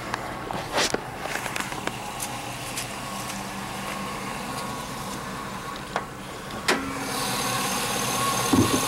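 2005 Cadillac Escalade V8 idling steadily, with a few clicks and knocks as the hood is opened. About seven seconds in, the engine gets louder and clearer with the bay exposed: a smooth, quiet idle with no squeaks or rattles.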